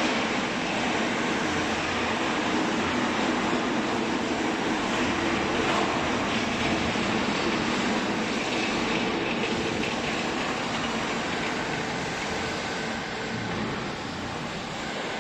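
Hydraulic baling press running, a steady mechanical drone from its electric motor and pump that eases slightly in level over the last few seconds.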